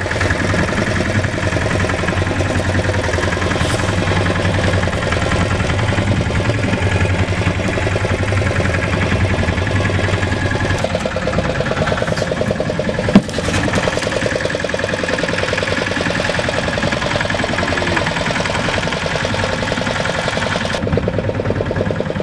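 Small fishing boat's engine running steadily with a fast, even chugging. A single sharp knock stands out about thirteen seconds in.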